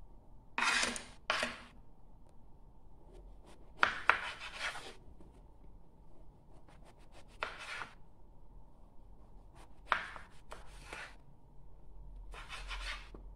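Kitchen knife peeling strips of skin off an eggplant and then slicing through the eggplant on a plastic cutting board: about seven short scraping cuts, spaced a second or more apart.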